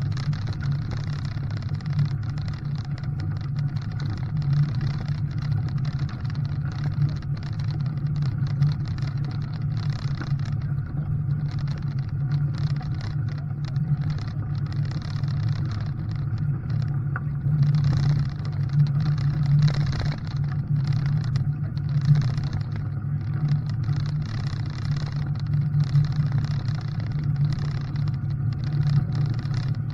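Vehicle engine running with a steady low drone, and a rougher noise above it that swells and fades.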